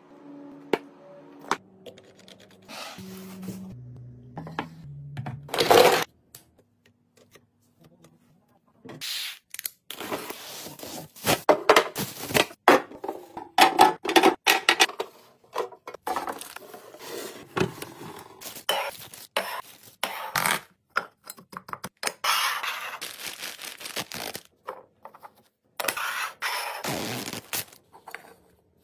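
Plastic and acrylic containers and lids being handled: a run of clicks, knocks and scrapes, busiest in the second half after a short quiet stretch.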